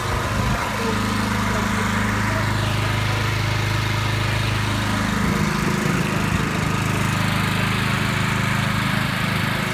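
A gas-engine pressure washer running steadily, its engine note shifting about five seconds in as the load changes, with the hiss of the water spray.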